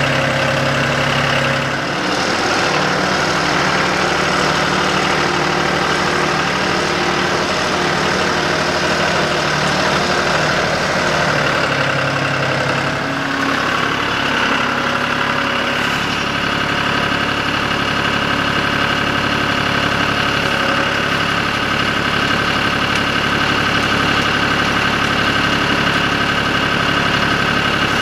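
John Deere compact tractor's diesel engine running steadily while it carries a round hay bale on its front loader. Its note shifts about two seconds in and again around thirteen seconds in.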